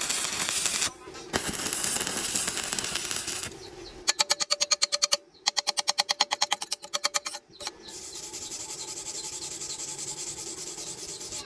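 Stick-welding arc crackling and sputtering as an electrode burns, broken off twice. In the middle comes a rapid pulsing buzz of many pulses a second, and after it a steadier, quieter crackle.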